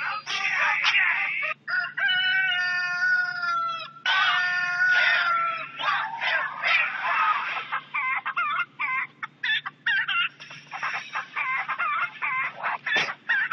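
Ringtone of chickens clucking and a rooster crowing: a few long drawn-out calls, then many short clucks in quick succession in the second half.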